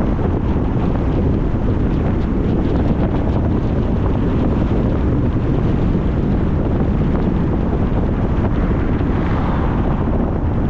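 Steady low rushing noise of wind buffeting the microphone.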